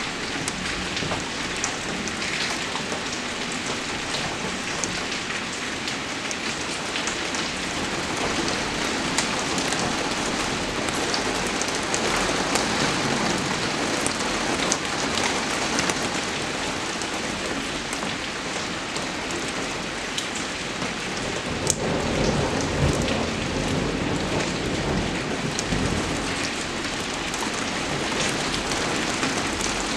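Steady rain falling, an even hiss scattered with many small sharp drop ticks, with a low rumble swelling about two-thirds of the way through.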